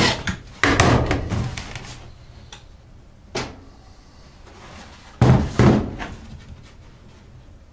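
Knocks and thumps of a cordless drill and a plastic ATV gas tank being put down and handled on a wooden workbench: a quick cluster at first, a single knock, then two louder thumps about five seconds in.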